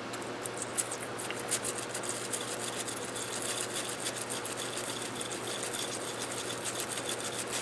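A small brush scrubbing metal parts of a disassembled lever-action rifle: rapid, irregular scratching strokes that start just after the opening and keep on steadily.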